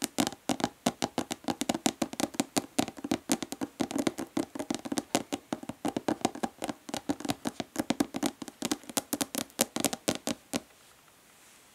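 Fast, hard natural fingernail tapping on a hollow plastic body lotion bottle, several sharp hollow taps a second. The tapping stops suddenly near the end.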